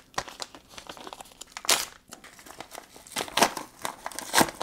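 A mailing envelope and the packaging inside it crinkling and rustling as they are opened by hand, in a run of short, uneven crackles. The loudest come just under two seconds in, again around three and a half seconds in, and near the end.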